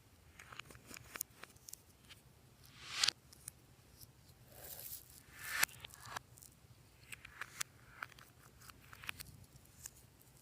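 Slime being handled and mixed by hand: scattered sticky clicks and crackles, with two louder swells that build and cut off about three and five and a half seconds in.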